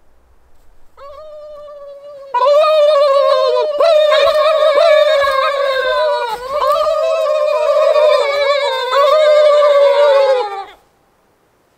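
Crow-call turkey locator blown in one long, wavering call. It gets much louder about two seconds in and drops in pitch as it cuts off near the end.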